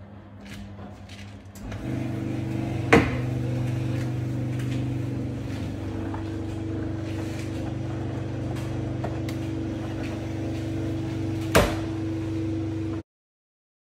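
A steady mechanical hum starts about two seconds in, with two sharp clicks during it, and cuts off suddenly near the end.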